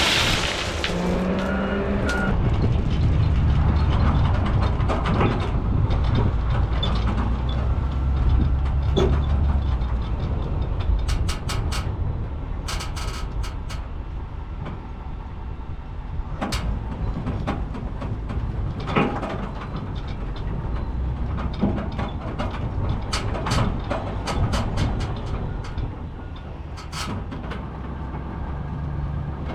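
Heavy truck's engine running as it drives, a deep steady rumble, with scattered clanks and rattles from the truck and its load bed.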